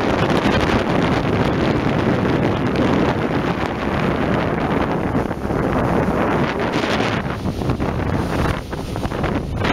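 Steady wind rushing over the microphone aboard a motor launch running across a lake, with the sound of the boat moving over the water underneath.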